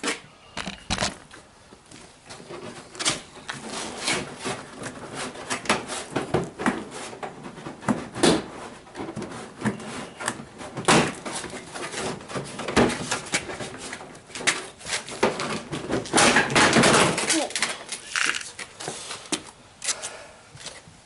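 Plastic knocking, clicking and scraping as a 2015 Toyota RAV4's front bumper cover is pulled loose from its clips, in irregular knocks with a longer, louder scraping stretch about sixteen seconds in.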